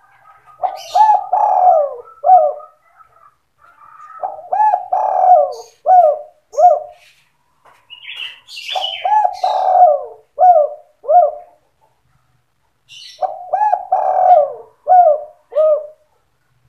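Spotted dove (tekukur) song: four repeated cooing phrases, each a longer coo followed by three short, clipped coos. It is the 'sandung kuk 2' style of song used as a lure call for trapping doves.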